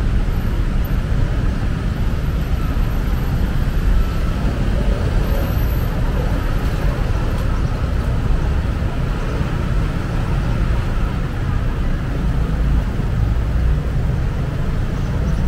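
Steady road traffic noise: a continuous low rumble of passing vehicles on a busy city street, with no single vehicle standing out.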